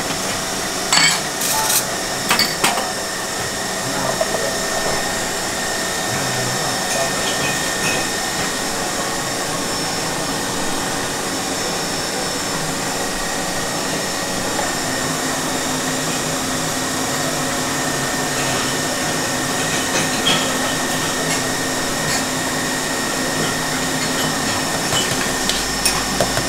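A small motor whirring steadily, with a few sharp clinks of porcelain cups and saucers being set down about one to two and a half seconds in, and a few softer clinks near the end. Faint voices sit underneath.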